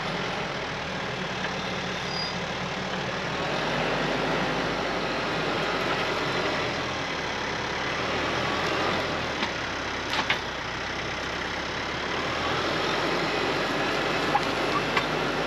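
Diesel engine of a TYM compact tractor running steadily as its front-loader grapple drags a log through sawdust. The engine note shifts a few times. A few sharp knocks come about ten seconds in, and two more near the end.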